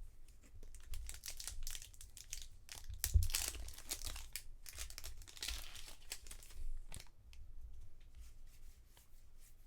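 A trading-card pack wrapper being torn open and crinkled, with the loudest tear just after three seconds, followed by lighter rustling and clicks of cards being handled.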